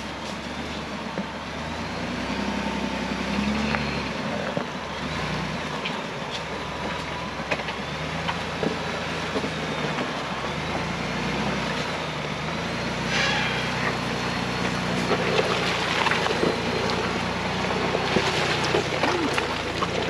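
Ford Bronco engine working at crawling speed through a deep trail rut, its pitch rising and falling with the throttle, with a few short knocks. It gets louder near the end as the truck drives up close.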